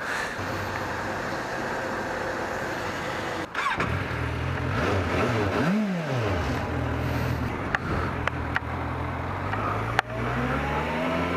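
Motorcycle engine, a Suzuki GSX650F's inline-four, running as the bike rides off. A steady rushing noise fills the first few seconds. The engine then revs up and straight back down about halfway through, and its pitch climbs again near the end as it pulls away.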